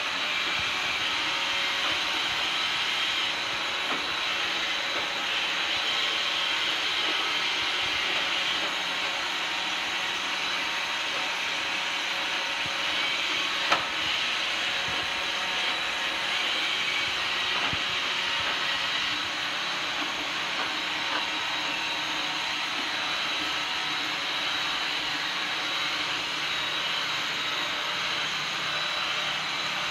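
iRobot Roomba robot vacuum running, a steady whirring hiss from its suction fan and brushes. A single sharp knock comes a little before halfway through.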